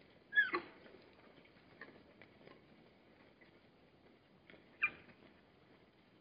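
Two short, high squeals from Hartmann's mountain zebras, each falling quickly in pitch, the first about half a second in and the second near the end, with faint scattered ticks between them.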